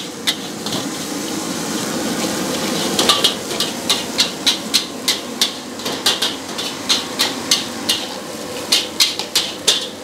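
Metal ladle clanging and scraping against a metal wok during stir-frying: quick, irregular sharp strikes two or three a second, pausing briefly about a second in and starting again at about three seconds. A steady rushing noise runs underneath.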